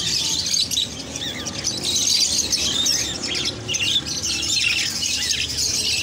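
Many caged parrots chirping and squawking at once: a dense, unbroken chatter of short, high calls.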